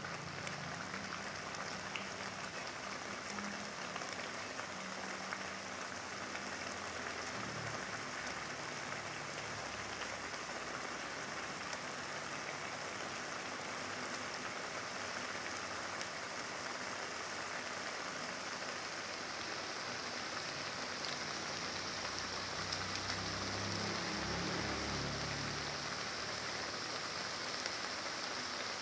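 Sambal of chilies, shallots and garlic sizzling steadily as it fries in oil in a pan.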